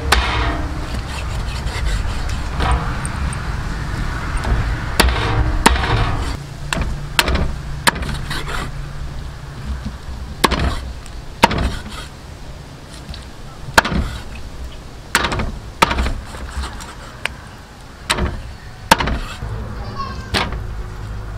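A cleaver chopping raw duck on a wooden chopping block, with sharp single strikes at irregular intervals of about one to two seconds.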